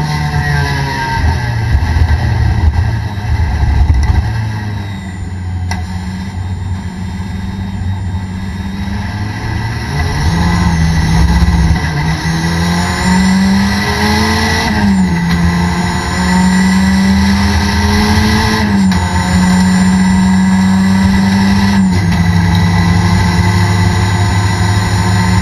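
A Toyota Corolla race car's four-cylinder engine, heard from inside the cabin. Early on it slows, its pitch falling, then runs low for several seconds. It then climbs through the gears, the note dropping sharply at two upshifts, and settles into a fairly steady speed.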